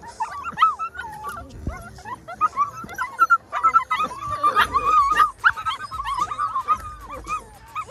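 A litter of Belgian Malinois puppies whining and yelping over one another in short high-pitched cries, many at once. They grow thicker and louder from about four seconds in as the pups tug and play-fight.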